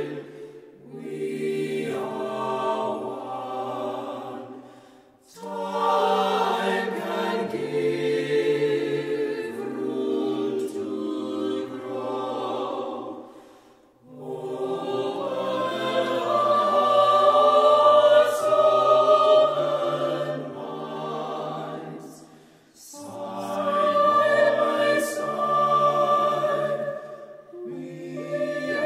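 Small mixed choir of men and women singing a cappella in harmony, in long phrases with brief breaks between them, swelling to its loudest a little past the middle.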